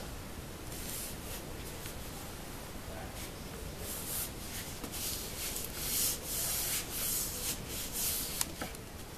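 Hands rubbing and pressing a sheet of EVA foam down onto glued milk cartons: a run of short brushing strokes that come louder and closer together in the second half, with a small sharp click near the end.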